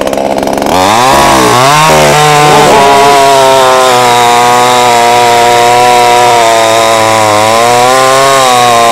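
70 cc two-stroke petrol chainsaw revving: the revs jump up and down a couple of times, then are held high and steady as it cuts through a hard, dry fallen tree trunk.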